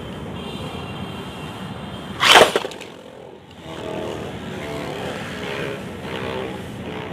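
A Beyblade Burst top, Genesis Valtryek V3, launched with a ripcord launcher: a sharp zip of the ripcord about two seconds in, then the top spinning and whirring steadily against the plastic stadium.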